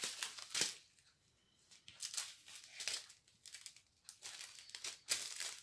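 Small clear plastic bags of diamond-painting rhinestones crinkling as they are handled, in a series of short bursts with a brief pause about a second in.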